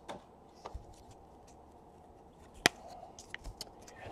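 Football trading cards being handled by hand: faint flicks and taps of card stock sliding and knocking together, with one sharper snap a little over two and a half seconds in.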